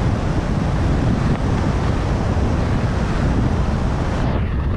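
Wind buffeting the microphone of a camera carried by a skier moving fast downhill, with the skis hissing over packed, groomed snow. The high hiss drops away shortly before the end.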